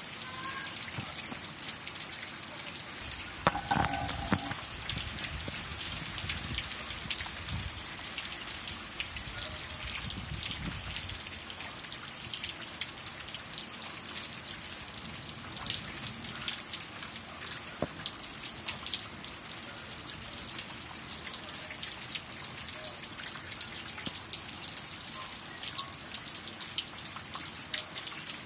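Steady rainfall at night, individual drops ticking on hard surfaces over a continuous hiss of rain. A brief louder tonal sound stands out about four seconds in, and a low rumble runs under the rain for several seconds after it.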